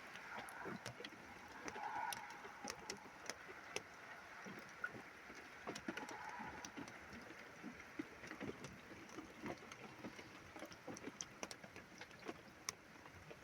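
Rain falling during a thunderstorm: a faint steady hiss with many scattered drops ticking sharply.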